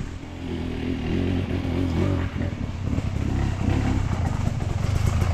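Husqvarna enduro dirt bike engine idling steadily, with a brief rise and fall in revs about two seconds in.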